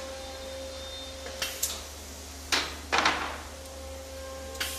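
Pneumatic semi-automatic vertical sliding-table screen printing machine cycling: sharp clunks of the table and screen moving, and two short hissing bursts of air in the middle, over a steady hum.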